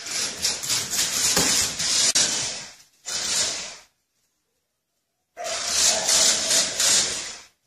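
Remote-control toy car driving over a tile floor, its small electric motor and wheels making a hissing whir. It runs in three bursts, a long one at the start, a short one, and another of about two seconds near the end, each stopping abruptly.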